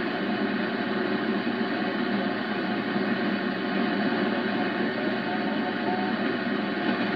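Satellit 750 shortwave receiver tuned to the 20-metre amateur band in single-sideband mode, giving a steady static hiss through its speaker with no clear station coming through.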